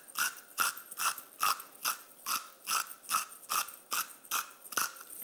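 Hand salt mill being twisted, grinding salt in a steady rhythm of short crunching strokes, about two a second.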